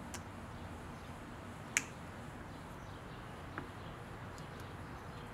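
A few sharp, isolated clicks from steel staples being prised out of the centre console with a pointed awl and dropped onto a wooden bench: a faint one at the start, the loudest about two seconds in, and a softer one about halfway through.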